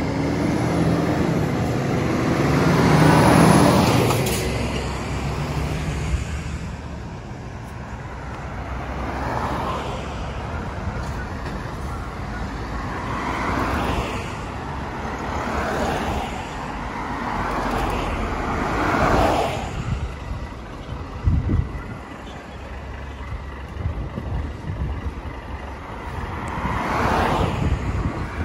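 Articulated lorry's diesel engine passing close by, the loudest sound, about three to four seconds in. A string of cars and lorries follow, each swelling and fading as it goes by, with a couple of short low thumps a little past the middle. A Volvo tractor unit without a trailer comes closer near the end.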